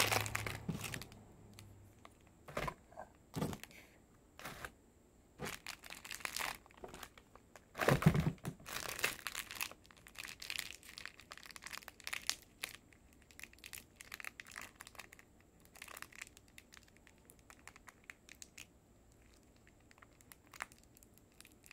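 A plastic candy wrapper crinkling and tearing as it is handled and opened: irregular, sparse crackles, with one louder thump about eight seconds in.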